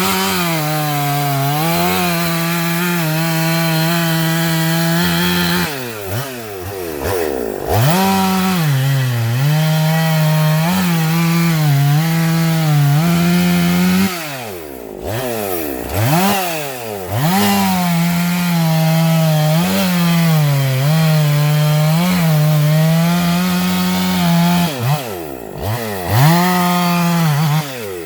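Husqvarna two-stroke gas chainsaw running at full throttle through wood, its engine pitch sagging and recovering as the chain loads in the cut. It drops off and revs back up between cuts about a quarter of the way in, halfway and near the end.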